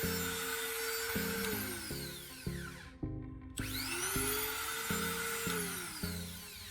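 Battery-powered grinder motor whining at speed and winding down, cutting out about three seconds in, then spinning up again with a rising whine and winding down once more near the end. Background music with a steady beat plays throughout.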